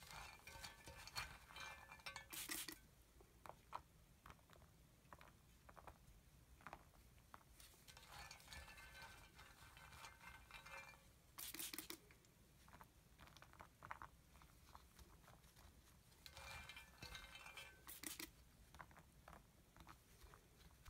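Small cubes of solid soap clicking and rattling faintly as they are scooped from a bowl and dropped into a soap mould, in three short spells of light clatter, each with one sharper click.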